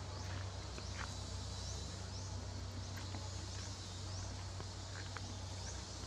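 Light rustling and ticking of macaques' feet and hands on dry leaf litter and dirt. Underneath is a short, high rising chirp repeated about once a second, like an insect, and a steady low hum.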